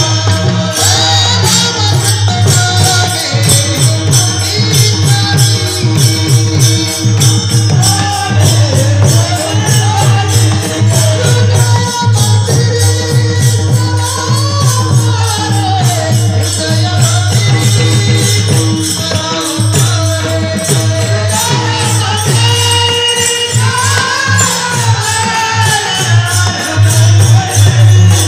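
Devotional kirtan singing: a man sings a gliding Marathi kirtan tune (chal) over fast, steady jingling metallic percussion and a sustained low drone.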